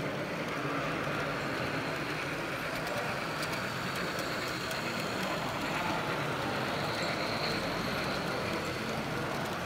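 Märklin H0 model steam locomotive hauling a train of coal hopper wagons past, with a steady rolling rumble of wheels on track.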